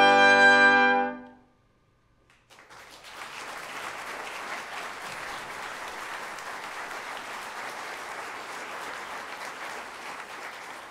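A brass quintet of trumpets, French horn, trombone and tuba holding a final chord that stops about a second in. After a second of near silence, the audience breaks into steady applause.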